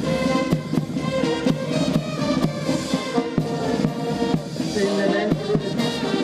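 Military brass band playing a march as it marches: tubas and trumpets carry the tune over a steady drum beat.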